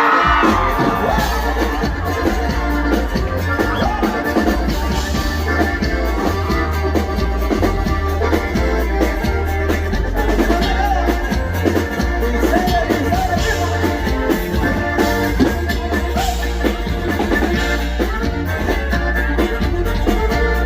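Norteño band music playing continuously, with a heavy bass line and drums under the melody.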